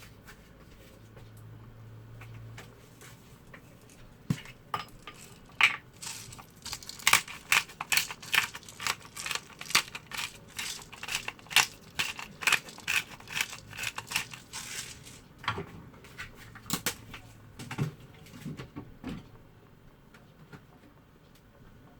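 Kitchen utensils clinking against cookware: a run of sharp clicks and taps lasting about fifteen seconds, quickest and loudest in the middle, over a faint steady hum.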